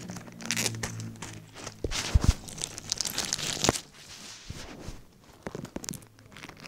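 Plastic packet crinkling and tearing as it is opened by hand to get at a small LEGO minifigure. The busy crackling lasts about four seconds, then gives way to quieter, sparser rustling.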